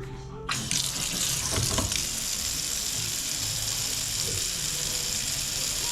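Newly installed Delta kitchen faucet turned on about half a second in, water running steadily into the sink.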